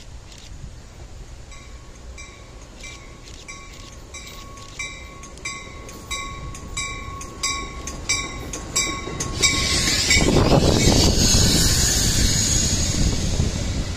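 A bell rings with even strokes about every 0.6 s, growing louder as a train approaches. About ten seconds in, the bell stops and the loud rush of the passing commuter train takes over.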